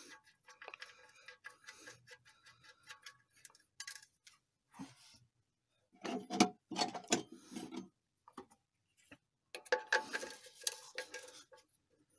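Hand tools handled under a car's oil pan: a run of light metallic clicks and ticks, then louder clattering and clinking at about six and ten seconds in, as a socket and extension are taken from a socket set and fitted to the oil drain plug.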